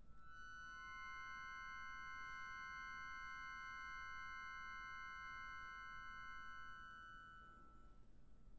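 Chromatic button accordion holding a quiet, high final chord of several steady notes, which dies away about seven to eight seconds in.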